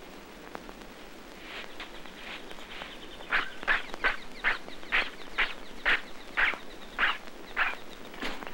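Rhythmic scratching strokes of a drawing tool on paper, about two to three a second. They start about a second and a half in and grow louder from about three seconds.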